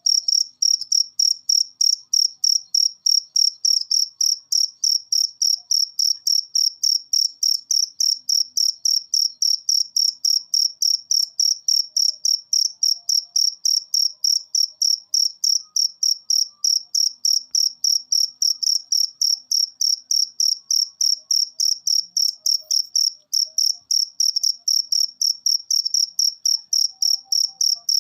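Cricket chirping steadily: a clear, high-pitched chirp repeated evenly about three to four times a second.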